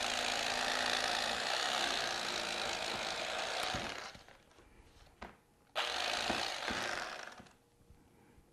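Electric carving knife running and sawing through the crusts of a sandwich made with partly frozen bread: one run of about four seconds, a pause with a few small clicks, then a second, shorter run.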